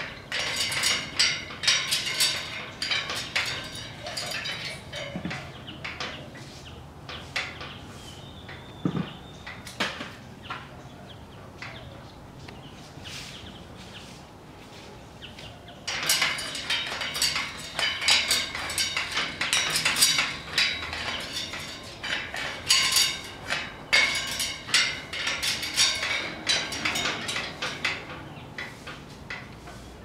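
Great green macaw's beak and claws clicking and clinking on metal cage bars as it climbs, in quick clusters of clicks for the first few seconds, quieter for a while, then busy again from about halfway through.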